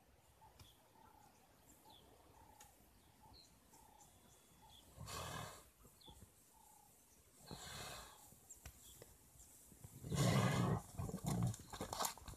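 Faint bird calls over quiet grassland, with two short rushes of noise, then a loud, low, rough growling burst from a male lion about ten seconds in as it charges a giraffe calf.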